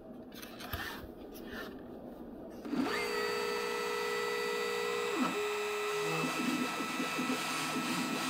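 A few faint knocks as an ice tray is handled. Then, about three seconds in, a Makita compact router on an X-Carve CNC spins up with a rising whine and runs steadily, carving ice. Under it the gantry's stepper motors hum in lower tones that shift pitch as the machine moves.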